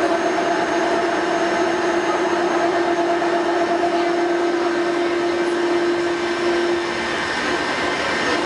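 Bombardier rubber-tyred automated metro train running between stations: steady rolling noise with a steady humming tone that drops out about seven seconds in.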